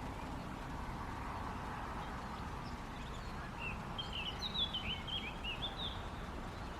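Steady rushing of river water, with a small bird singing a quick twittering phrase of high chirps about halfway through.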